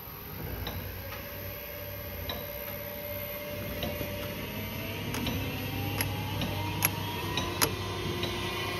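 Kemutec Gardner stainless steel ribbon blender's 4 kW electric motor and gearbox running, with a hum under a whine that rises steadily in pitch over about four seconds as the speed control is turned up. Irregular light ticks come through the running sound.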